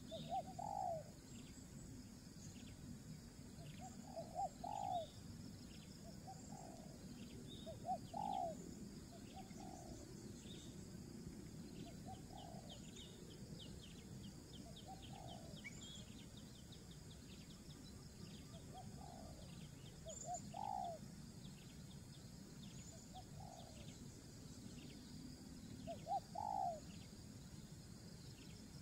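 A bird calling with short rising notes, single or in pairs, every few seconds, over faint rapid insect-like ticking.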